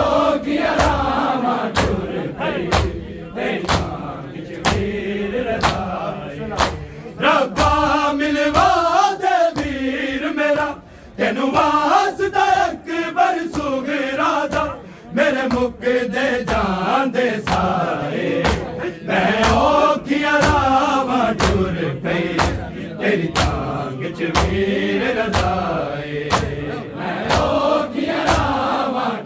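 Men chanting a Punjabi noha in unison, over a steady beat of chest-beating (matam) strikes a little more than once a second.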